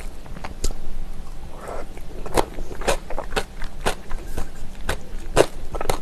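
Close-miked chewing of spicy seasoned raw oysters and vegetables: a run of wet, crunchy bites and mouth clicks at an uneven pace.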